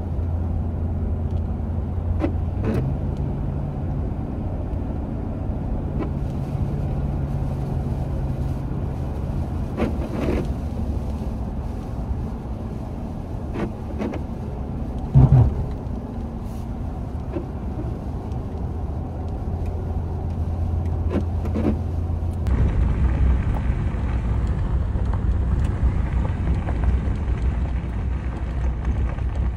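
Pickup truck driving on a wet road, heard from inside the cab: the engine hums low and steady with a few shifts in pitch, over tyre and road noise. There are a few light knocks and one louder thump about halfway through. About three quarters of the way in the sound changes suddenly to a rougher, louder rumble.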